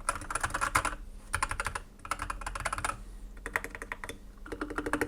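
Typing on a Dark Project KD87A mechanical keyboard with red linear switches and ABS keycaps: about five quick runs of rapid keystrokes with short pauses between them.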